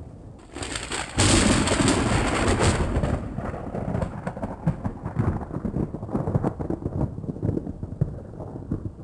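Thunderclap: a sharp crack about a second in, loudest for about two seconds, then breaking into uneven crackling and rumbling that slowly fades.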